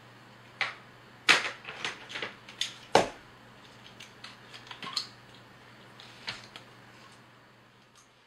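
Irregular sharp clicks and taps of a small screwdriver and screws being worked, the loudest about a second in and again about three seconds in, fainter and sparser toward the end, over a low steady hum.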